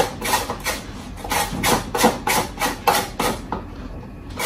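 A carrot being grated by hand on a flat handheld grater: quick rasping strokes, about three or four a second, pausing briefly near the end.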